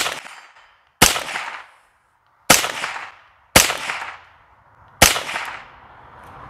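A .22 rifle firing five shots about a second to a second and a half apart, each with a short ringing tail. A softer, drawn-out rush of noise follows near the end.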